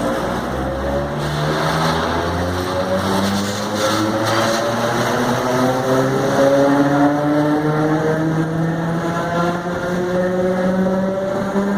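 Traction motors of a CPTM FNV/Cobrasma 4400-series electric multiple unit growling loudly under power, their tone climbing slowly and steadily as the train gathers speed, over the rumble of the running train.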